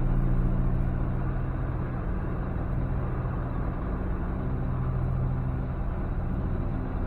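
Semi truck's diesel engine running with a steady low hum, heard from inside the cab.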